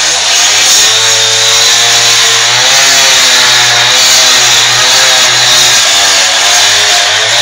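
Petrol cut-off saw (power cutter) running under load as its blade cuts into a wall, the engine note wavering up and down under a loud, continuous grinding hiss.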